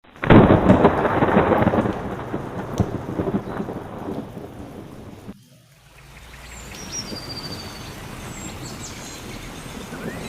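A thunderclap rumbling and slowly fading over rain. After a brief break, quieter steady rain follows, with a few high bird chirps.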